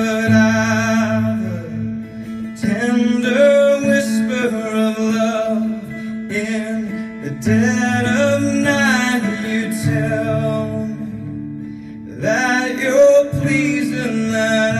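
A man singing a slow worship song to his own strummed acoustic guitar, in phrases with short breaks between them while the guitar chords ring on.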